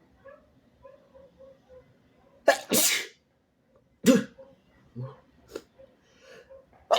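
A person sneezing wetly: faint catching breaths, then a loud sneeze about two and a half seconds in, a shorter sharp one about four seconds in, and another starting right at the end.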